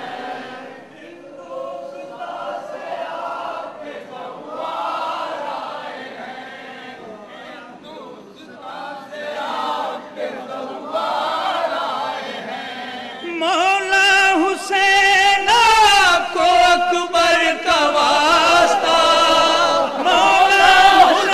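A crowd of men chanting a mourning lament (noha) together, unaccompanied; about thirteen seconds in the singing grows louder and clearer.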